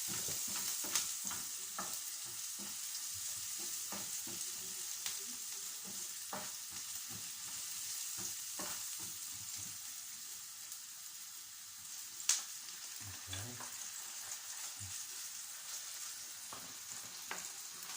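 Onions and tomato puree sizzling in oil in a pan, steady throughout, while a utensil stirs them with scattered clicks against the pan. One sharper clack about twelve seconds in.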